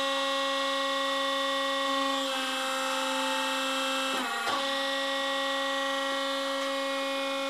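A tractor-driven rotary harrow running, giving a steady, high-pitched mechanical whine. Its pitch dips briefly and recovers about halfway through.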